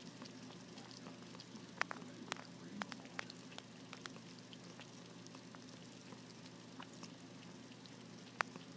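Pet drinking fountain running, with a steady low pump hum and a fine trickle of water, while a cat drinks from it. Scattered sharp clicks and wet ticks come from the cat lapping, with the loudest about two seconds in and again near the end.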